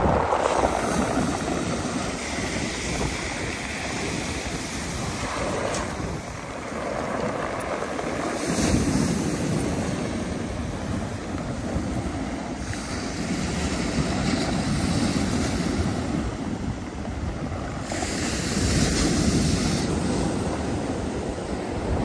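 Black Sea surf breaking on a pebble beach, the waves washing up over the shingle in swells every several seconds, with wind buffeting the microphone.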